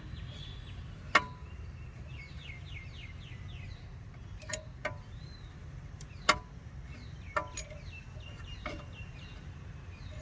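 Six or so sharp metal clinks at uneven intervals from tools working on a car's rear brake caliper while its piston is pressed back in, over a steady low hum, with small birds chirping in quick falling notes between the clinks.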